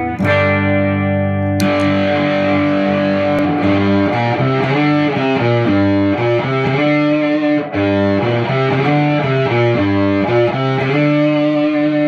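Electric guitar played through a one-knob fuzz pedal, a clone of the D*A*M Meathead: a clean chord rings, then about a second and a half in the pedal is switched on and the tone turns fuzzy and bright for a chord riff, with a brief break near the middle and a last chord ringing out.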